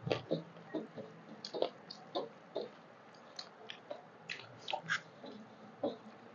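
Two people eating rice and curry with their hands: irregular wet smacks and chewing clicks as mouths and fingers work the food, with a few sharp smacks in quick succession.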